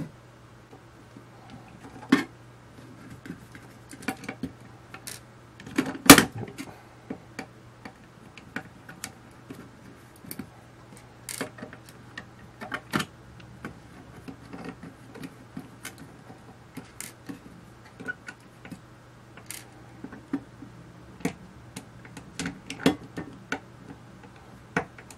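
Small screwdriver undoing screws on a metal equipment case: scattered light clicks and taps of the driver and the small screws, with one louder knock about six seconds in.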